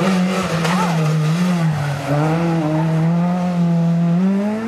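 Rally car engine at full throttle as the car passes close by and pulls away up the stage. The engine note drops at a gear change about two seconds in, then climbs steadily again toward the end.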